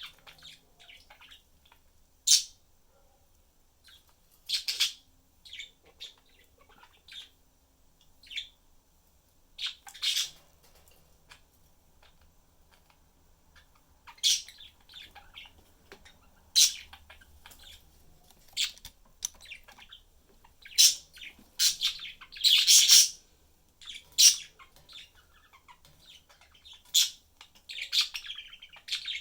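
Pet budgerigars chirping: short, sharp, high chirps and squawks, scattered at first and coming thicker and louder in the second half.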